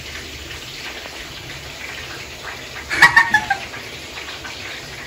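Shih tzu giving a quick run of short, high yelps about three seconds in, falling in pitch.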